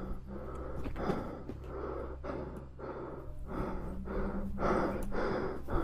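A person breathing heavily and fast, about two breaths a second, growing louder toward the end, over a low steady hum.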